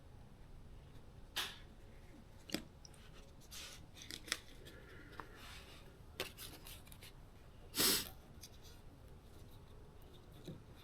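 Handling noises from hand work: a few short scrapes and sharp clicks, loudest a brief rustling scrape about eight seconds in.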